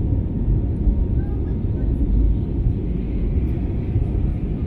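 Steady low rumble inside the cabin of an Airbus A320neo climbing after takeoff: engine and airflow noise heard through the fuselage.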